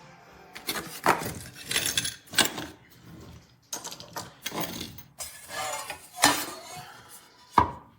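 Metal parts of a desktop clamp speaker stand clinking and clattering as they are handled, in an irregular run of knocks and rattles, with two sharper knocks near the end.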